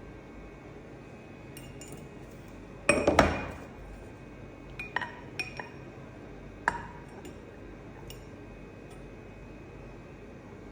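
Metal engine parts, pistons and connecting rods, clinking as they are handled and set down. A quick cluster of loud ringing clinks comes about three seconds in, then a few lighter clinks and faint ticks.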